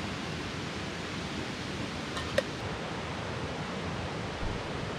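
Steady rushing of a mountain stream, with one short click about two and a half seconds in.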